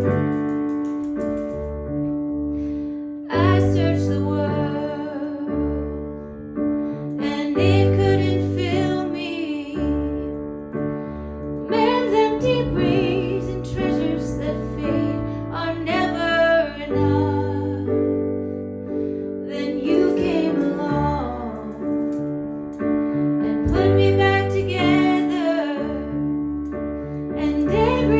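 A woman singing a song in phrases over piano or keyboard accompaniment. The keyboard plays alone at first, and the voice comes in about three seconds in.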